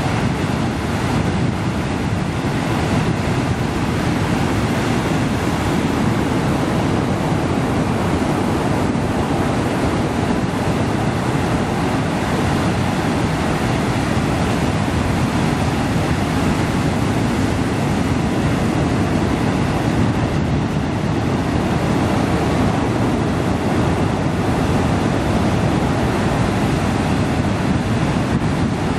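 Heavy ocean surf breaking and washing over a flat rock shelf: a continuous, loud rush of churning white water with no distinct individual crashes.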